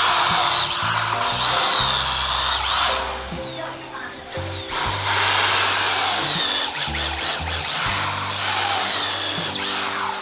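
Corded electric drill boring into the wooden base of a newel post in several runs. Its motor whine rises and falls in pitch as the trigger is worked. Background music with a bass line plays underneath.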